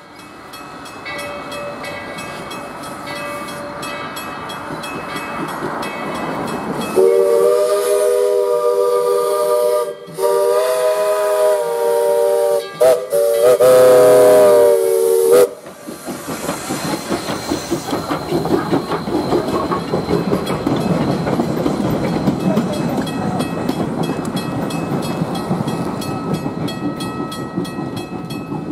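Narrow-gauge steam locomotive D&RGW 346 blowing its steam whistle for a grade crossing, a chord of several notes sounded long, long, short, long, over the steady ringing of the crossing signal bell. After the whistle the locomotive passes with rhythmic chuffing and rolling wheels.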